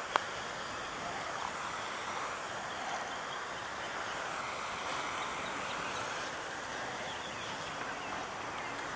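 Steady outdoor background hiss, with one sharp click just after the start.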